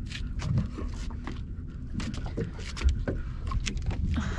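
Irregular scrapes, clicks and knocks of hands working a hook out of a snapper's mouth on a plastic cooler lid, over a steady low rumble.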